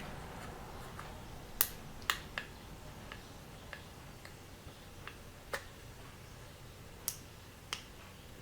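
Irregular sharp clicks of small pushbuttons being pressed, about half a dozen of them, some a second or more apart and two in quick succession, over a faint low hum.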